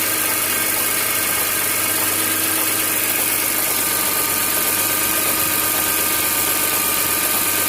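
BMW E46 M3's S54 straight-six idling cold and steady, with a random, irregular rattle almost like plastic banging rather than a regular beat. It is not the usual VANOS rattle, and its cause is still undiagnosed after an anti-rattle kit and a new upper exhaust chain guide.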